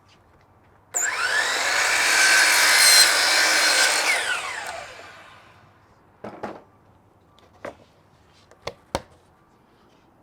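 Power saw spinning up and cutting through a siding board for about three seconds, then the blade winding down. A few light knocks follow as the cut piece is handled.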